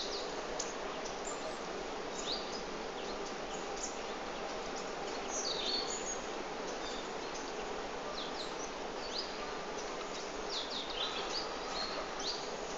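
Small birds chirping in short, scattered high calls over a steady background hiss of outdoor ambience.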